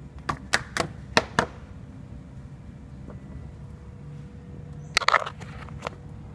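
Sharp clicks and knocks from hands handling parts behind a car's headlight: a quick run of five in the first second and a half, then a tight cluster about five seconds in, over a faint steady hum.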